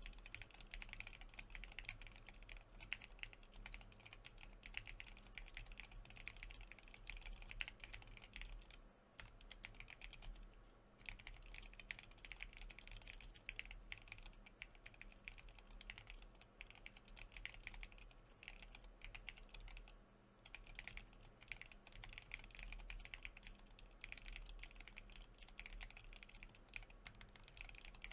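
Faint typing on an Av4 custom mechanical keyboard fitted with lubed IV Darkmoon prototype linear switches and PBT keycaps: a steady stream of key strokes with a few short pauses.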